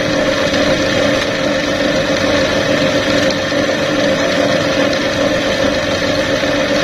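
Drive motor of a Juki LBH-781 buttonhole machine running steadily, its flat belt turning on the free pulley: a constant hum with a clear steady tone.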